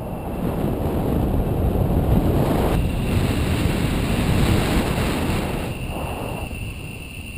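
Wind rushing over the camera microphone of a paraglider in flight: a gusty, low rumble that swells and eases, falling off toward the end.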